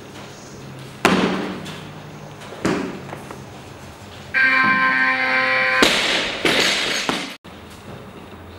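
Barbell clean and jerk on a lifting platform. Feet thud on the platform as the lifter drives the bar overhead, with a second thud a second and a half later. A steady electronic tone lasts about a second and a half, then come loud crashes of the loaded bar with its bumper plates dropping onto the platform. The sound cuts off abruptly near the end.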